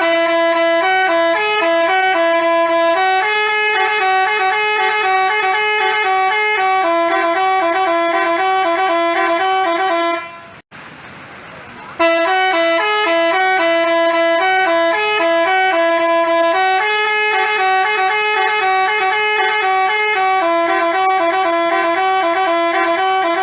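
Basuri telolet musical horn playing a melody of stepped horn notes. It stops about ten seconds in, then plays the same tune again a second and a half later.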